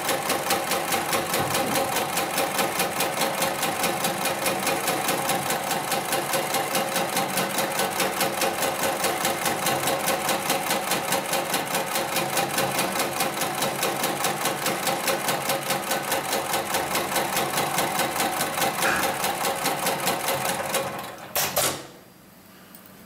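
HIGHTEX 72008 extra-heavy-duty programmable pattern sewing machine stitching through multi-ply synthetic webbing sling at a fast, even stitch rhythm. It stops about 21 seconds in, with a couple of sharp clicks as it finishes.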